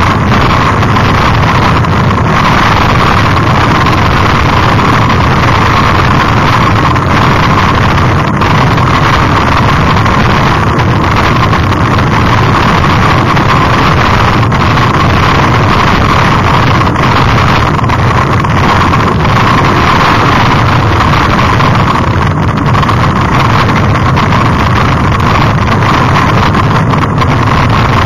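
Loud, steady rush of wind and vibration on the camera's microphone as a mountain bike descends a gravel forest track, with faint clicks and rattles from the bike over the stones.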